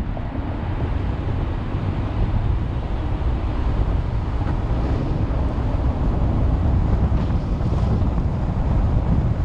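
Steady road and wind noise from a car driving along a highway, a constant low rumble with a hiss on top.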